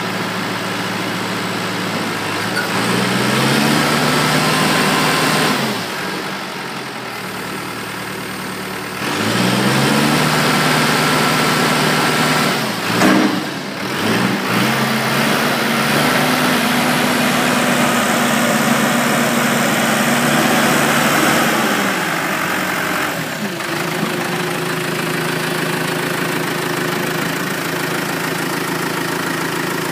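Gehl RS5-34 telehandler's diesel engine running, its revs rising and falling several times as the boom and fork carriage are worked, then settling to a steady lower speed near the end. A short sharp knock sounds about halfway through.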